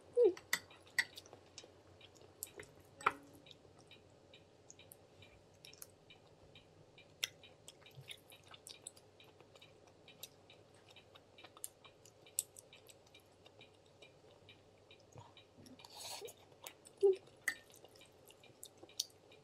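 Quiet eating sounds of ramen and tteokbokki: soft chewing and wet mouth sounds, with scattered light clicks of chopsticks and spoon on a ceramic bowl. A few of these are louder, about a second in, around three seconds in, and near the end.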